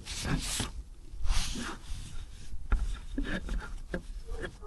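A rag wiping down a removed transmission part: several short rubbing swishes, followed by a few light clicks and knocks.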